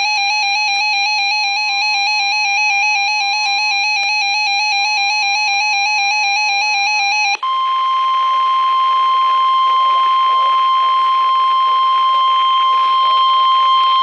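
A weather alert radio's warbling two-pitch alarm sounds over the steady 1050 Hz NOAA Weather Radio warning tone; a little over seven seconds in the warble stops and the steady tone carries on alone, signalling that a warning message is about to be read.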